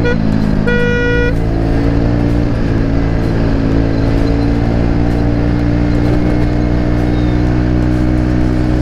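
TVS Ntorq 125's single-cylinder four-stroke engine running at steady cruising throttle through an aftermarket Akrapovic exhaust fitted with a dB killer, its pitch creeping slowly upward as the scooter gains speed. A horn beeps briefly about a second in.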